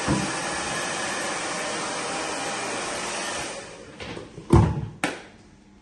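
Hand-held hair dryer blowing steadily, switched off about three and a half seconds in and dying away, followed by two sharp knocks about half a second apart.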